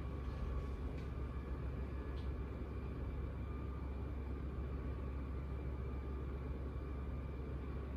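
Steady low background rumble, with a few faint ticks in the first couple of seconds.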